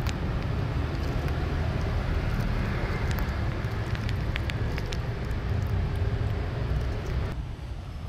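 Steady low rumble of outdoor background noise, with a few faint clicks around the middle; the rumble drops abruptly near the end.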